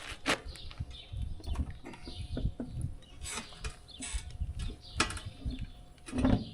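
Scattered light clicks and knocks at an uneven pace, with a few dull low thumps.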